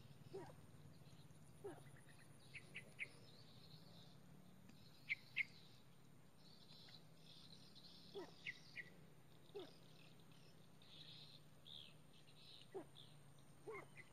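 Faint calls of crakes (burung tikusan): short, quick falling notes at irregular intervals, with a pair of sharper high chirps about five seconds in, over a low steady hum.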